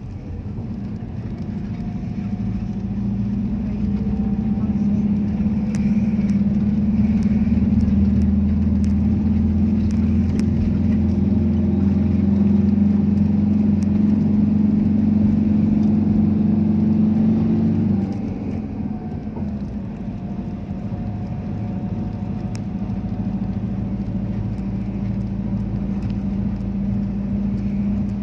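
Motor vehicle engine and road noise heard from on board while driving: a steady low hum that builds over the first few seconds, holds, then drops abruptly about two-thirds of the way through and slowly builds again.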